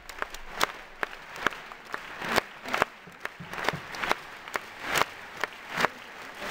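Scattered single hand claps, a dozen or more at an uneven pace and of differing loudness, over a low murmur of a large arena crowd.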